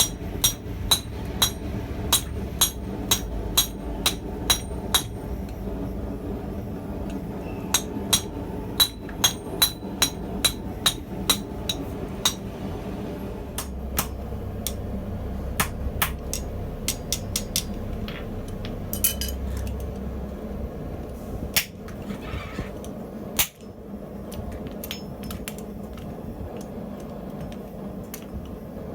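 Blacksmith's hammer striking steel on an anvil with a ringing clink, in runs of quick blows about two a second with short pauses between, then a few scattered strikes, over a steady low hum.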